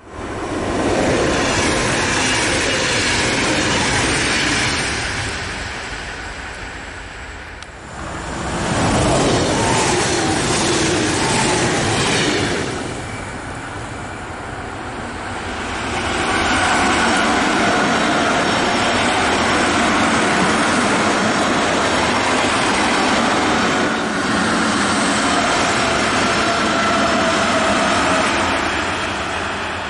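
Berlin S-Bahn electric train passing on the tracks: a dense rail rumble and hiss that swells and fades, then builds again and stays loud for the last dozen seconds as the train runs past close by, with a steady high whine running through it.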